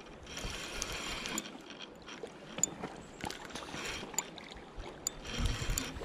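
Fishing reel being cranked in several bursts of about a second each, its gears whirring, with a few sharp clicks in between.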